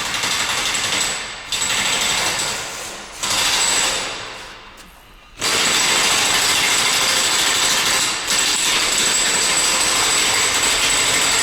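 A loud workshop power tool runs in three short bursts, then steadily from about five seconds in, with a thin high whine over its noise.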